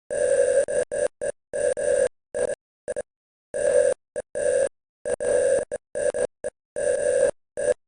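Morse code: a single mid-pitched beep keyed on and off in a run of long dashes and short dots, with dead silence in the gaps between elements.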